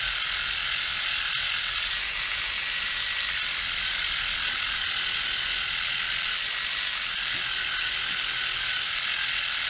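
Dspiae reciprocating sander running at a raised speed, its tip stroking back and forth on a plastic model part to sand out an ejector pin mark. It makes a steady, even, high-pitched mechanical noise.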